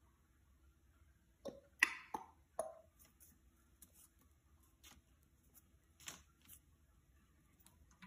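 Faint short clicks and taps from an African grey parrot: four in quick succession about one and a half seconds in, then a few scattered ones.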